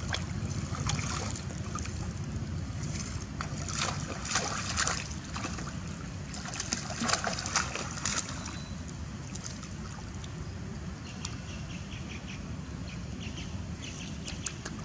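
Water splashing and sloshing as long-tailed macaques swim and tussle in a shallow pond, with louder bursts of splashing about four seconds in and again around seven to eight seconds in.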